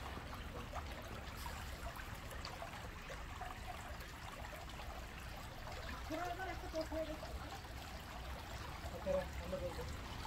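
Outdoor crowd ambience: passersby talking indistinctly, with voices coming close about six seconds in and again about nine seconds in, over a steady low rumble.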